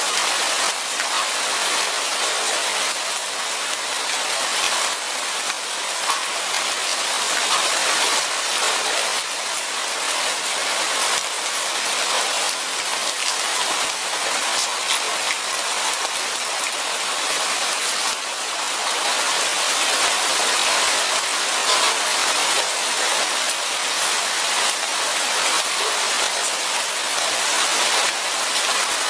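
Steady rain falling in a forest, a dense even hiss of many drops with fine individual ticks.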